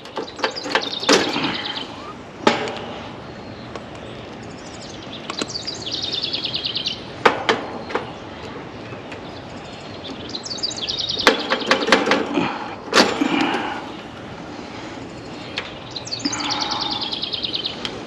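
Small metallic clicks and clinks from needle-nose pliers as the wire connectors are pulled off and pushed onto the terminals of an AC condenser's run capacitor. A bird trills three times in the background, each trill a rapid run of high notes lasting about a second and a half.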